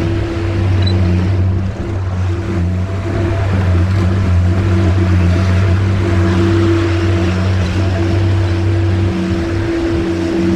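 Skid steer engine running steadily, a constant low drone.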